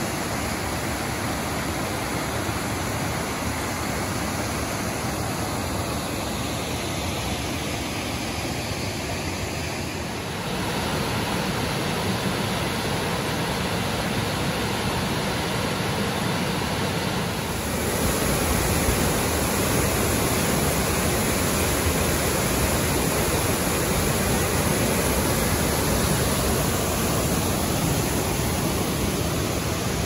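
Waterfall pouring into a pool and a rocky creek rushing over stones: a steady rush of water that gets louder about ten seconds in and again a few seconds later.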